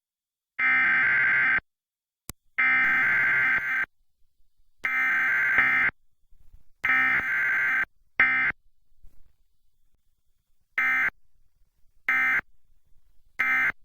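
Emergency Alert System SAME digital data bursts: a harsh warbling buzz sent as a run of roughly one-second bursts with short gaps, then three short bursts about a second and a half apart near the end, the end-of-message code that closes the test.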